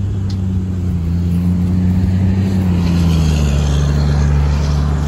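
2008 Harley-Davidson Road Glide's V-twin engine idling steadily, its pitch dipping slightly about three seconds in.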